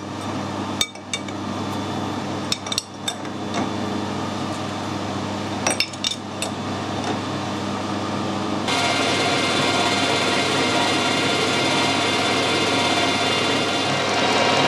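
Sharp metallic clicks and knocks as a lathe's collet chuck is tightened with a C-spanner. About nine seconds in, a steadier and louder machine sound takes over: the metal lathe running, turning a stainless steel stud.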